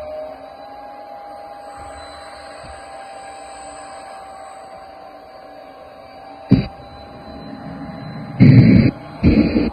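Home-built 1/14.5 scale RC hydraulic excavator running, a steady whine of its hydraulic pump and Servonaut SMB sound module, with several loud short noises in the last three seconds.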